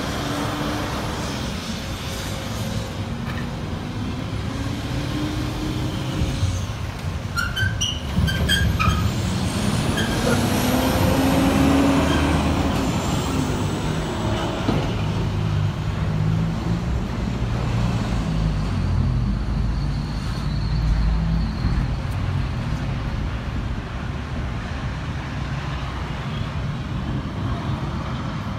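Outdoor yard background of vehicle engines and traffic, with the sound of a vehicle passing, rising and falling, about ten seconds in, and a few short sharp clicks shortly before it.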